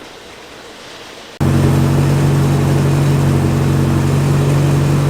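Porsche 944's 2.5-litre eight-valve four-cylinder engine, fitted with a stepped header, running loud at a steady speed. It cuts in suddenly about a second and a half in, after a quieter stretch of background noise.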